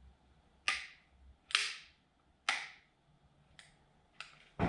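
Sharp clicks from an angle grinder being worked by hand at its disc end. There are four loud clicks roughly a second apart and two fainter ones near the end, each trailing off briefly.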